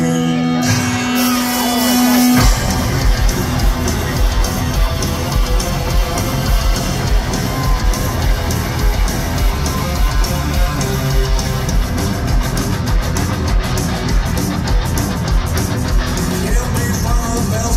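Live heavy metal band heard over the PA, with distorted electric guitars, bass and drum kit. A note is held for about two seconds, then the full band comes in with a steady pounding beat and no vocals.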